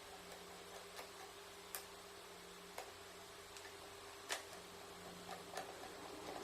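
Faint, irregular clicks and light taps, about half a dozen, the sharpest a little past the middle, over a low steady hum.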